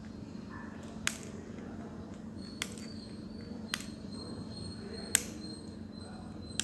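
Side-cutting pliers snipping excess resistor leads off a circuit board: four sharp clicks, one every second or so.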